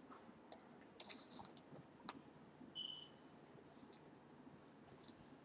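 Faint crinkling and crackling of paper food wrappers as fries are picked up from them, a cluster of crackles about a second in and scattered clicks after. A brief high chirp sounds near the middle.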